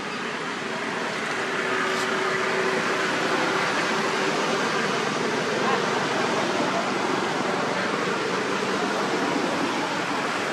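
Steady rushing background noise with no clear single source, swelling slightly over the first two seconds, with one faint click about two seconds in.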